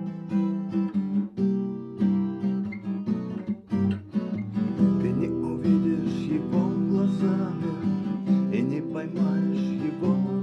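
Acoustic guitar strummed in a steady rhythm as an instrumental passage of a song; from about halfway a wavering melody line joins in above the chords.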